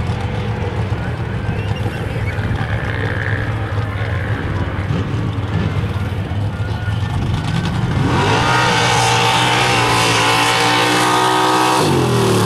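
A lifted Chevrolet pickup race truck's engine idling steadily at the start line, then revving hard about eight seconds in as the truck launches down the dirt track at full throttle. The pitch dips and climbs again briefly near the end.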